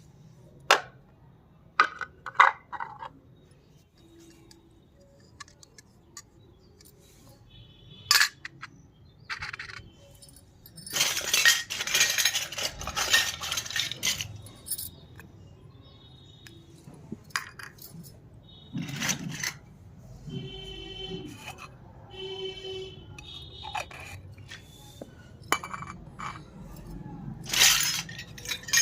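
Small toy kitchen pieces from a miniature kitchen set clinking and clicking as they are handled and set down, in scattered separate taps. There is a longer stretch of rustling and scraping near the middle, and a brief rattle a little later.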